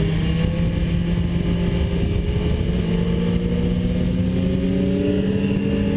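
BMW S 1000 RR's inline-four engine under way, its pitch climbing slowly as the bike accelerates, with wind noise over it.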